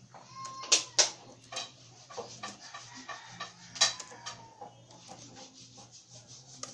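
Laptop keyboard keys clicking irregularly as code is typed, with a few sharper keystrokes about a second in and again near four seconds.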